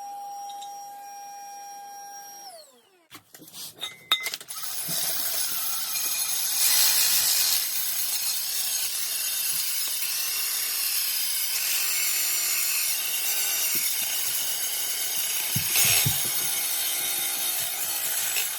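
A small motor's steady whine winds down and stops, a few clicks follow, and then a drill-driven wire brush scrubs continuously against rusty, pitted metal, scraping rust off the boiler's combustion chamber panel and burners.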